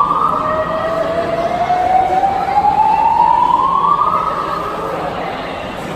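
Building fire alarm sounding a slow whoop tone, the kind used by voice evacuation systems. Each siren-like sweep rises slowly over about four seconds, then drops and starts again. One sweep drops right at the start, the next climbs until about four seconds in, and then the sound fades.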